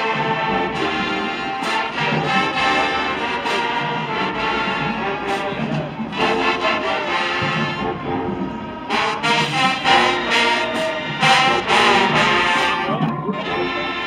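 Marching band playing: brass led by sousaphones and trumpets over a drum line, with loud accented hits in the second half.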